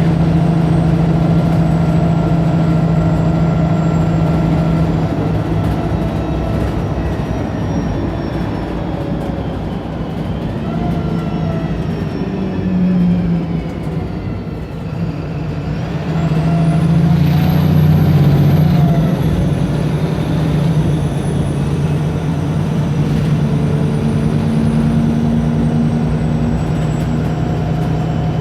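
Wright Pulsar single-deck bus's diesel engine running. The note eases off and quietens around the middle, then comes back louder as the engine works harder about sixteen seconds in, with a high whine that rises sharply and then slowly falls away.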